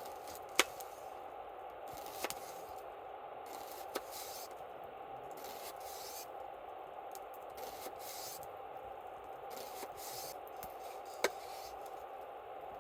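Wood campfire burning with a steady hiss and crackle, broken by four sharp pops, the loudest about half a second in.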